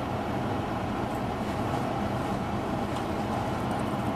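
A steady, low background rumble with no distinct events.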